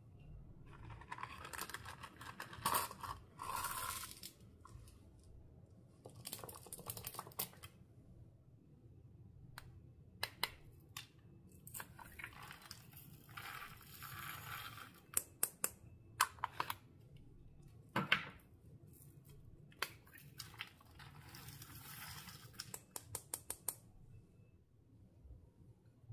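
Hands kneading and stretching clear slime, giving sticky crackles in bursts of a few seconds with many sharp little pops and clicks in between.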